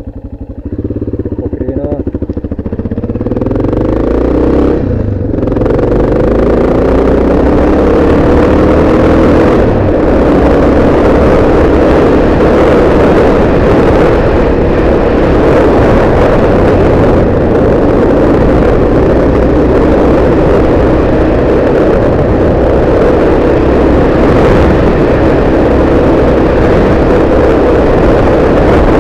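Yamaha XT600 single-cylinder four-stroke engine pulling away and accelerating through the gears. Its pitch climbs and drops back at two shifts in roughly the first ten seconds. It then runs steadily at road speed, with wind rushing over the bike-mounted camera's microphone.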